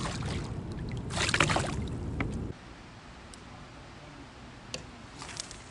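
Water splashing beside a kayak as a small bass is let go by hand, over a steady low rumble. The rumble stops abruptly about two and a half seconds in, leaving a quieter stretch with a few faint clicks.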